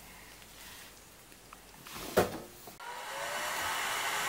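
A single sharp click just past two seconds in, then a steady rushing hiss of blown air that starts about three seconds in and keeps going.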